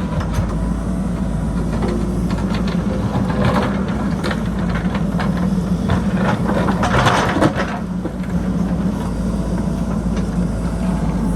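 JCB backhoe loader's diesel engine running steadily under work, with scattered clanks and clatter that are busiest about seven seconds in.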